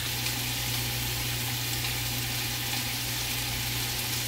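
Steady sizzling of food cooking without oil: nopal cactus paddles roasting on a comal with their juices bubbling, and chicken thighs frying in their own rendered fat in a pan alongside.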